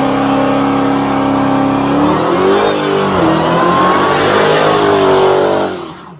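Dodge Challenger doing a burnout: its engine is held at high revs over the hiss of spinning rear tyres. The revs drop and climb again twice, and the sound cuts off abruptly near the end.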